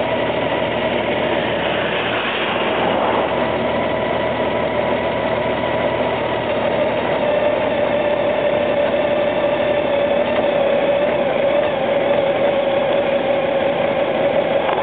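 Honda Gold Wing GL1800's flat-six engine running steadily at low road speed, a constant hum that hardly changes in pitch.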